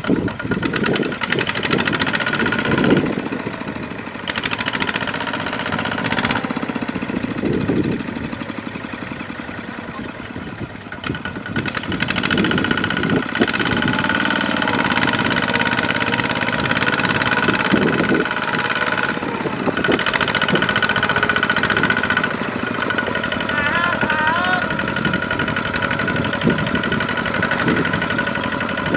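Kubota ZT155 single-cylinder diesel of a two-wheel walking tractor running under heavy load as it drags a loaded trailer through deep mud. The engine is quieter for several seconds in the first half, then picks up and runs louder and steadily through the second half.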